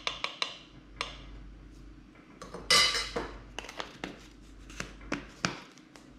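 A spoon clinking and tapping against a bowl as dry seasonings are added to a breading mix, with one louder, longer clatter about three seconds in.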